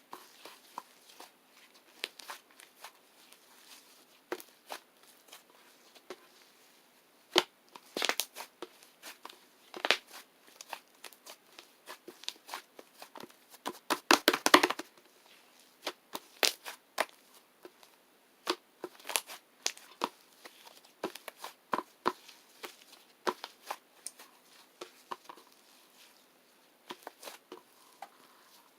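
Close, irregular clicks, taps and crinkling from something being handled, with a quick run of clicks about halfway through.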